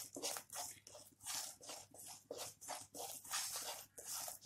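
Spatula scraping and stirring a thick besan-and-spice paste in a nonstick kadai, in quick repeated strokes of about three a second. The paste is being roasted on a slow flame and is kept moving without pause so that it does not burn.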